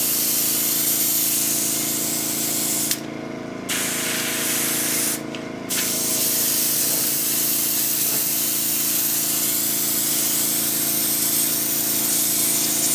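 Airbrush spraying thin acrylic paint diluted with isopropyl alcohol, a steady hiss that stops briefly about three seconds in and again about five seconds in. A steady hum runs underneath throughout.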